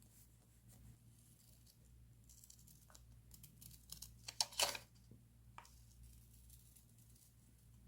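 Close-up paper and stationery handling during journal decorating: soft, faint scratchy rustles, with a short, sharp, crisp sound of paper or tape being torn about halfway through.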